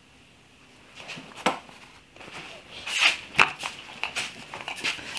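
Handling noises at a workbench: one sharp knock about a second and a half in, then a run of lighter knocks and rustles through the second half.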